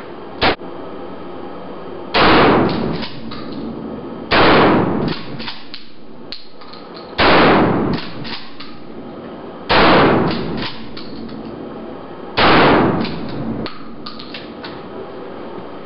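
Pump-action shotgun fired five times, about two to three seconds apart, each blast echoing off the concrete walls of a small indoor range, with short clacks of the pump being worked after each shot. A single shorter sharp crack comes about half a second in.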